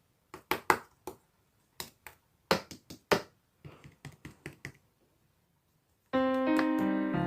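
Slime being pressed and squeezed, giving a run of sharp, irregular clicks and pops. About six seconds in, piano music starts.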